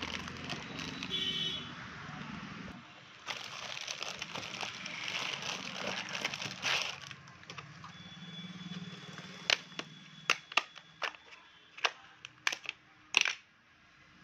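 Thin black plastic bag crinkling as it is handled. Near the end come a string of sharp plastic clicks and knocks as Brother laser-printer cartridge parts (toner cartridge and drum unit) are handled and fitted.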